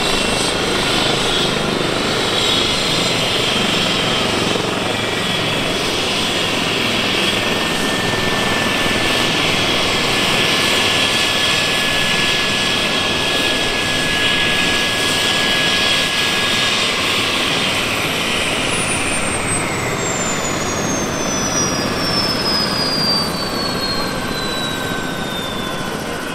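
Eurocopter EC135T3 helicopter running on the ground with its main rotor turning: a steady rotor and turbine noise with a held whine. About two-thirds of the way through, a high whine starts falling steadily in pitch and the sound eases off a little as its twin Turbomeca Arrius turboshaft engines wind down.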